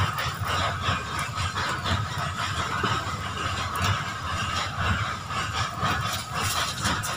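Cooking fire of dry leaves burning under a pot on a brick hearth, crackling irregularly, over a low rumble.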